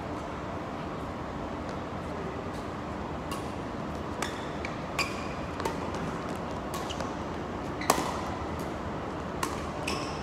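Badminton rackets striking a shuttlecock during a doubles rally: sharp pings about once a second from about three seconds in, the loudest about eight seconds in, over a steady background hiss.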